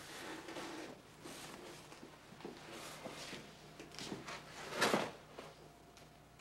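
Handling noises of a flat box being picked up and carried, with soft knocks and footsteps and one louder, short scraping rustle just before five seconds in.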